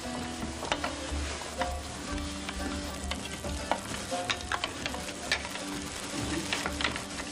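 Irregular clinks and clicks of spoons against bowls and dishes over a low hum, from people eating a shared communal meal.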